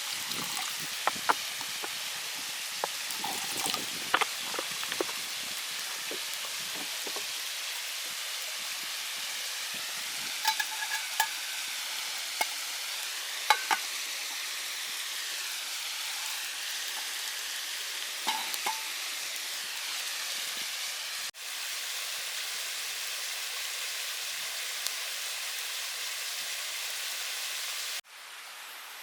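Steady sizzling hiss of cooking over a campfire, with scattered sharp pops and crackles.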